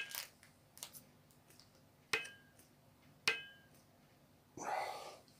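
Sharp metallic clinks from an adjustable spring hand grip strengthener being handled: three clicks, each with a brief ring, then a short soft rustle near the end.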